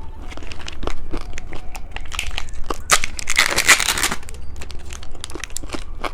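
Close-miked candy eating: crisp crunching and crackling with crinkling and tearing of a plastic wrapper, thickest about three to four seconds in.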